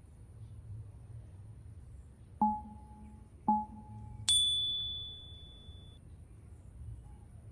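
Three chime dings: two lower ones about a second apart, then a higher one that rings on for well over a second.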